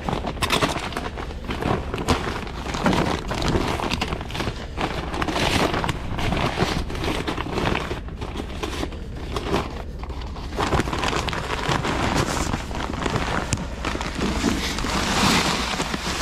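Strong gusty wind buffeting the microphone, a rumbling, rushing noise that swells and drops.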